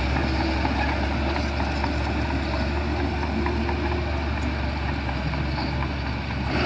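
Shantui bulldozer's diesel engine running steadily with a low hum, with faint scattered clicks and rattles over it.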